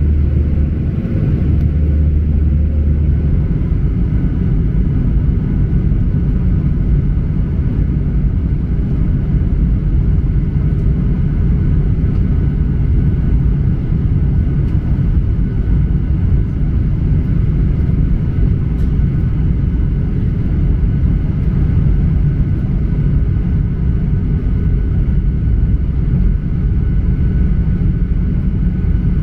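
Boeing 737-800 cabin noise in flight: the steady low rumble of the jet engines and rushing air. A deeper hum underneath drops away a few seconds in.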